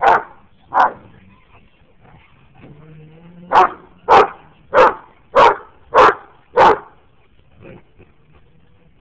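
Big dogs barking in rough play-wrestling: two loud barks at the start, a low growl, then a run of six barks at nearly two a second, and one faint bark near the end.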